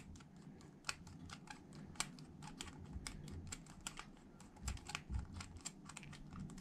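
Faint, irregular small clicks, several a second, of a flat-blade screwdriver turning a brass main jet into a lawnmower carburettor body by hand.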